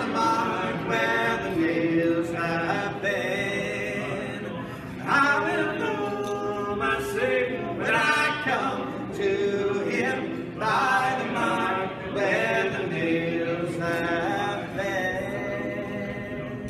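A bluegrass band's singers singing a gospel song together in close harmony, several voices holding and moving between sustained notes.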